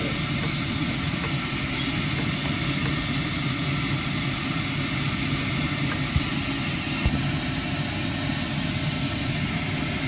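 A steady, even machine-like hum, with a few light knocks of a wooden spatula against a frying pan as noodles are stirred.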